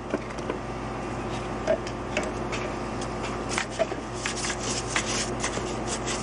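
A brush scrubbing loosened E-coating and residue off a steel car hood hinge in short strokes, mixed with light clicks and knocks from the metal hinge being handled. A low steady hum runs underneath.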